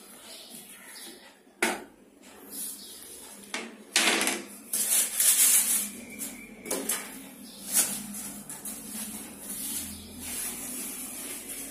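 Clear plastic wrapping crinkling and rustling in irregular bursts as it is pulled off wooden baby-cot panels, loudest from about four to six seconds in.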